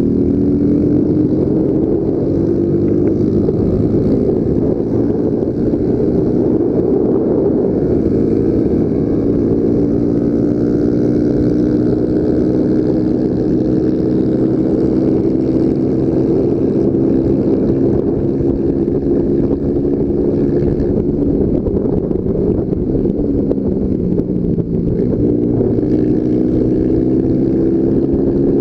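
Small single-cylinder four-stroke motorcycle engine accelerating hard on board. Its note climbs steadily in pitch through each gear and drops back at the gear changes, about eight and twenty-one seconds in.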